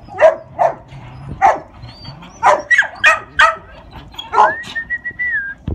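A dog barking, about nine short barks in uneven quick runs, then a long high whine that rises and holds steady near the end.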